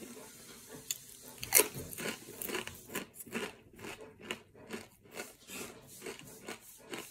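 Biting into a thick ridged Ruffles Double Crunch jalapeño cheddar potato chip, with a sharp snap about a second in and a louder one soon after. Then the chip is chewed with steady crunches, about three a second.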